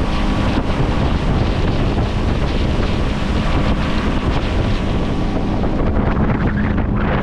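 Small boat's motor running steadily under way, with a steady hum under heavy wind buffeting the microphone and water rushing past the hull.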